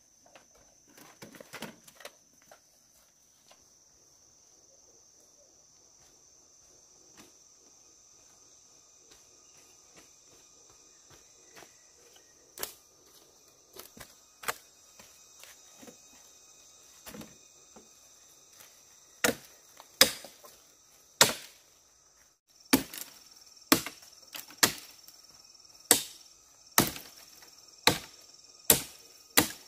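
Sharp chopping strikes on wood, a few scattered at first and then about one a second through the second half, over a steady high chirring of insects.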